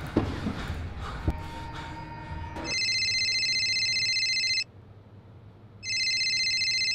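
Low rumble with a sharp thud about a second in, then a telephone ringing: two trilling rings of about two seconds each with a short gap between them.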